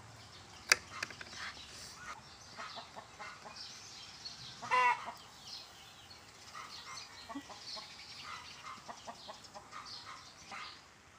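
Chickens clucking intermittently, with a short pitched call about five seconds in. A single sharp click comes near the start and is the loudest sound.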